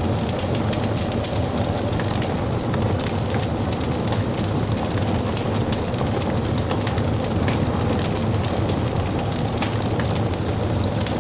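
Wood fire burning, with scattered small crackles and pops over a steady low rumble.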